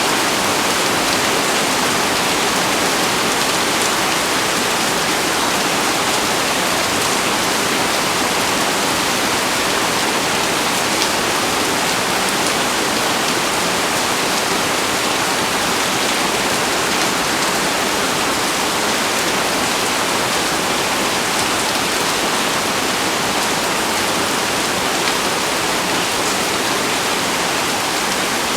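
Heavy rain pouring down steadily onto leaves and vegetation, a dense even hiss with scattered drop patters.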